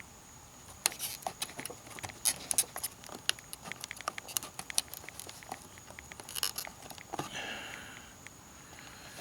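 Irregular plastic clicks, knocks and creaks of a Honda Accord corner light housing being worked back and forth by hand, stuck in its mounting.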